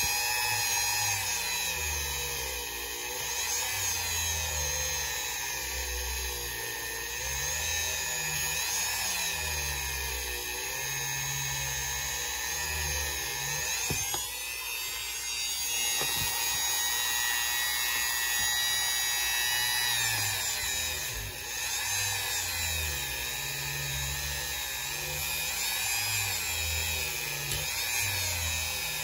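Small high-speed rotary tool with a polishing wheel whining as it polishes the metal wheels of a model train truck. Its pitch wavers up and down as the wheel is pressed on and eased off.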